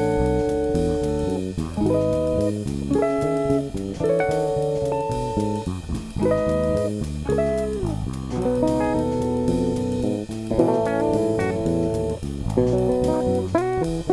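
Instrumental music: a guitar plays a melody of sustained notes, some bent up or down in pitch, over bass guitar and drums.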